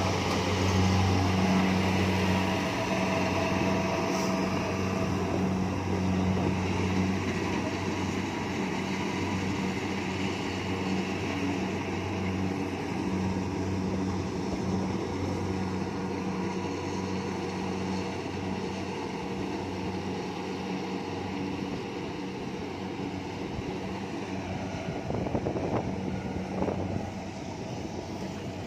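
Kubota rice combine harvester running steadily with an even engine hum and the noise of its threshing machinery, gradually getting quieter, with a couple of short louder noises near the end.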